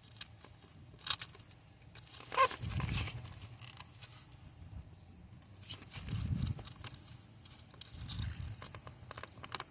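Sporadic small clicks, scrapes and low bumps of hands working cables and plastic clip tabs loose from their mounting brackets in a car's engine bay, with a brief squeak about two and a half seconds in.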